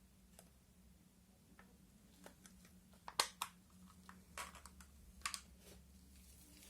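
Scattered light clicks and taps of small hard objects being handled on a work surface, with a few sharper knocks around the middle.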